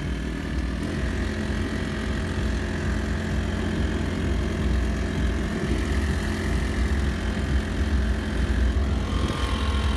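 Honda GX35 35cc single-cylinder four-stroke outboard engine running steadily at low, no-wake cruising throttle, pushing a small pontoon boat.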